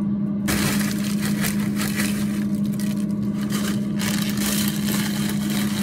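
A foil snack bag crinkles and ridged potato chips rattle as they pour into a plastic basket, starting about half a second in, over a steady low hum.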